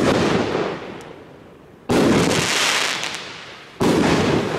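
Super Power Burst Open 50 mm firework cake firing its shots: loud bangs about every two seconds, one just as it begins, one about two seconds in and one near the end, each fading out over a second or so.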